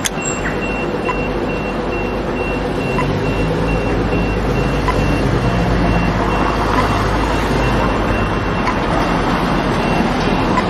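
Pedestrian crossing push-button signal: a click, then a high beep repeating evenly at about two beeps a second, over steady traffic rumble with a vehicle passing.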